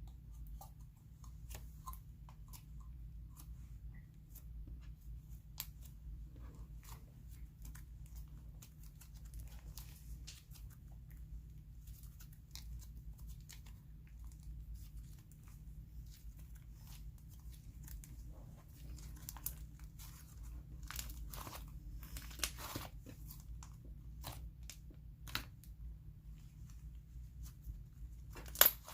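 Hands stretching, spreading and squishing a thick butter slime, giving a scatter of soft sticky clicks and crackles.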